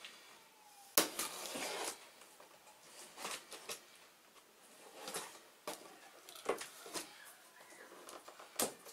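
Cardboard box being opened and handled, its flaps pulled and rubbed in a string of sharp rustles and knocks, the loudest about a second in.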